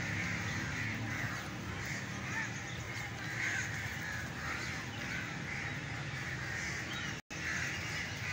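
A flock of crows cawing, many harsh calls following one another with little pause. The sound cuts out briefly about seven seconds in.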